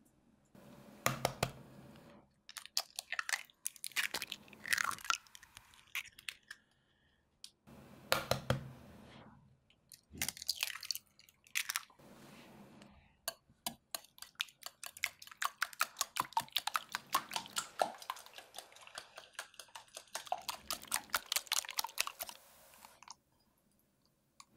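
Eggs cracked on the rim of a ceramic bowl and broken into it, with knocks and crackling shell, then beaten in the bowl. The beating is a quick, even run of clicking against the china for about nine seconds, stopping near the end.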